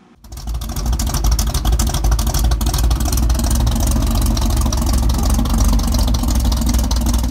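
A loud car engine running steadily with a deep rumble, starting suddenly: the engine sound of a channel intro.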